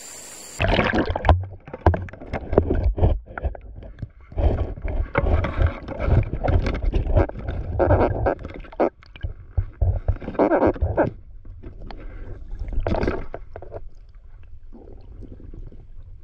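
Muffled underwater sound picked up by a submerged action camera: water sloshing and gurgling with irregular knocks and handling clatter. It cuts in about half a second in, as the camera goes under, and eases off near the end.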